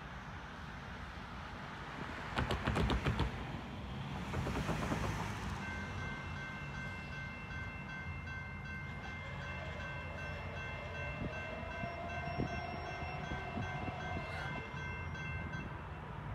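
Norfolk Southern EMD SD70ACE diesel locomotive's multi-chime air horn sounding one long steady blast of about ten seconds as the train approaches, over a low rumble. A short burst of knocks comes shortly before the horn.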